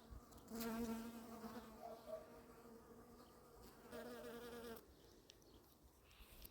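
A bee buzzing as it flies close by, twice: a longer pass of about two seconds starting half a second in, then a shorter one around four seconds in.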